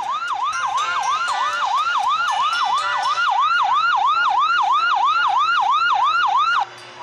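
Ambulance siren in a fast yelp, its pitch sweeping up and down about three times a second. It cuts off suddenly near the end.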